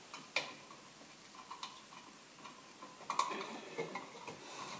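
Faint, scattered metallic clicks and ticks of a grounding screw being turned into a metal electrical junction box, with a small cluster of clicks about three seconds in.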